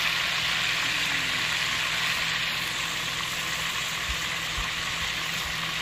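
Whole fish frying in a pan of hot oil, sizzling steadily and easing off slightly toward the end.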